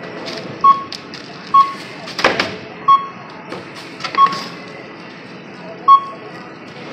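Short sharp clicks, each with a brief high beep, about five of them at irregular intervals of a second or so, over a steady background hiss; a longer scraping clatter comes about two seconds in.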